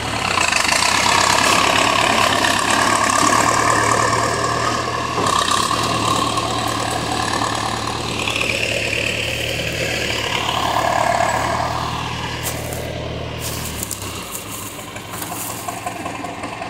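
John Deere 440 cable skidder's diesel engine running steadily as the machine is maneuvered; near the end the engine note drops and gets quieter.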